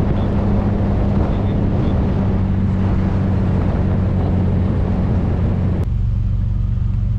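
Car engine running on the road with tyre and wind noise, then a sudden change about six seconds in to the engine idling steadily, the road noise gone.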